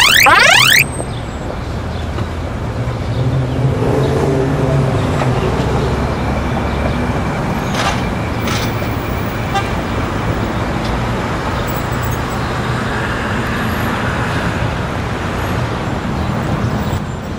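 Street traffic ambience: a steady rumble of cars and road noise, with a couple of faint clicks about eight seconds in. It opens with the tail of a series of quick rising electronic chirps, loud and repeated several times a second, which cut off under a second in.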